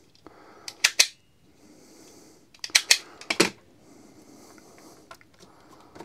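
Automatic wire stripper clamping and pulling the insulation off the ends of a twin red-and-black wire: two clusters of sharp clicks and snaps, about a second in and again around three seconds in.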